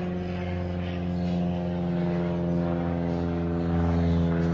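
Propeller airplane passing over: a steady engine drone that slowly grows louder.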